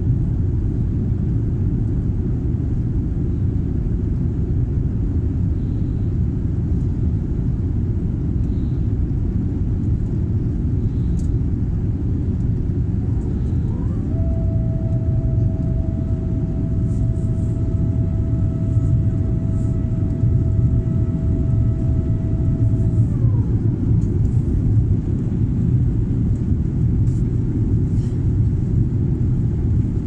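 Steady low rumble of an airliner cabin in the climb after takeoff, the engines and airflow heard through the fuselage. About fourteen seconds in, a steady mechanical whine rises in, holds for about nine seconds, then falls away.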